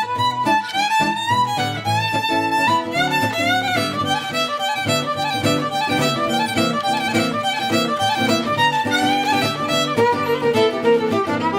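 Background music: an up-tempo fiddle tune with string accompaniment.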